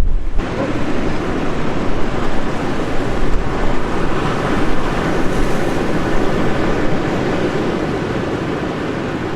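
Storm surf and gale-force wind on a rocky coast: a loud, steady roar of rough sea with gusting wind.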